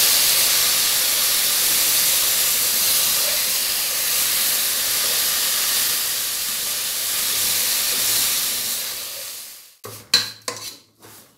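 Water poured into hot ghee and fried vermicelli in a pan, hissing and sizzling steadily as it boils off, the hiss fading away near the end. In the last second or so, a spoon stirs the vermicelli against the pan in a few quick scraping strokes.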